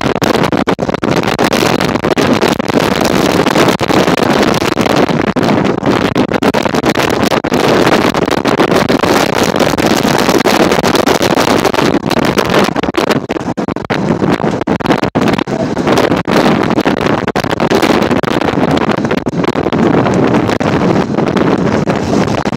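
Ride noise of a 1934 English Electric Blackpool boat tram, an open-topped streetcar, running along the track, heavy wind rushing over the microphone in the open car. It is loud and steady throughout, with irregular short knocks and buffets.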